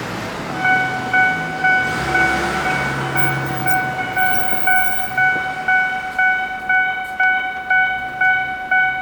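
Japanese railway level crossing's electronic warning alarm starting up about half a second in and ringing a calm-sounding, steady ding about twice a second, signalling that a train is approaching. Road traffic runs underneath it at first.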